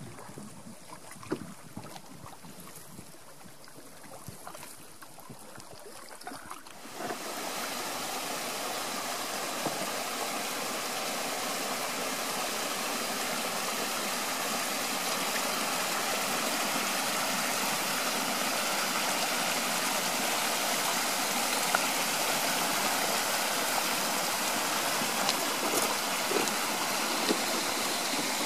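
Faint wind and water for the first few seconds, then, about seven seconds in, a sudden change to the steady rush of a shallow stream running over rocks.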